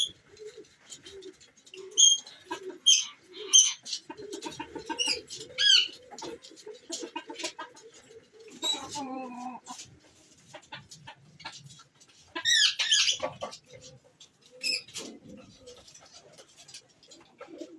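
Chickens and other birds calling: scattered short high chirps and clucks over low cooing, with one longer falling call about nine seconds in and a loud burst of calls near the thirteenth second.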